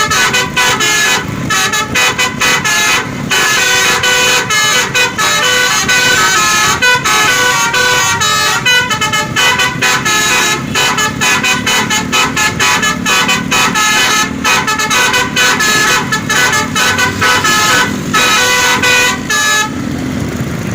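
Bus's basuri "telolet" multi-tone musical horn playing a tune of short notes that change pitch rapidly, with brief breaks between phrases.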